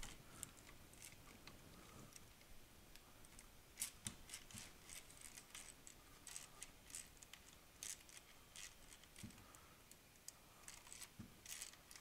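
Faint, irregular light metallic clicks from a socket wrench with a Torx bit working the screws on a DeWalt 611 router's motor cap. The wrench is failing to tighten the screws, which the user takes for a stripped ratchet.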